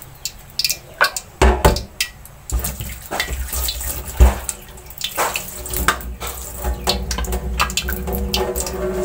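Water running, as from a tap into a sink, with scattered clicks and clatter of kitchen utensils.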